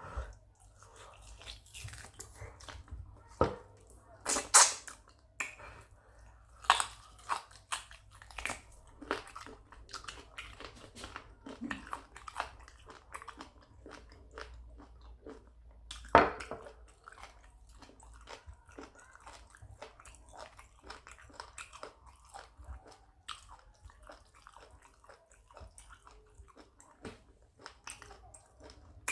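Close-up chewing, biting and wet mouth sounds of someone eating, with sharp clicks and crunches throughout, the loudest about four seconds in and again about sixteen seconds in.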